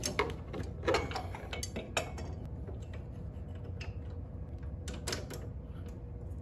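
Scattered metallic clicks and clinks of hand tools and hardware as the rear axle and suspension of a Tesla Cyberquad electric ATV are fitted together. The clicks are thickest in the first two seconds, then sparse, over a low steady hum.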